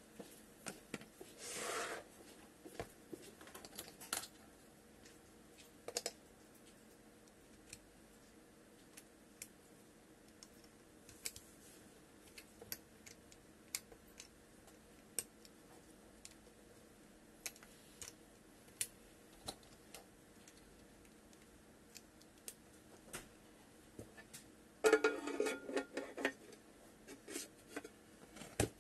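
Handling noise from a Codegen CDG-HDC-35BA portable hard-drive enclosure being put together: scattered light clicks and taps of its shell and small parts, a sliding scrape of the drive carrier in the shell a second or two in, and a louder rattling scrape about 25 seconds in.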